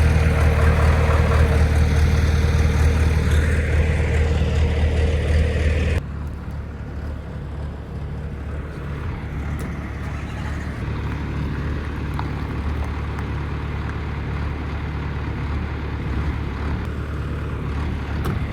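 A motor vehicle's engine running steadily with a low hum. About six seconds in it cuts abruptly to a quieter stretch of the same steady running.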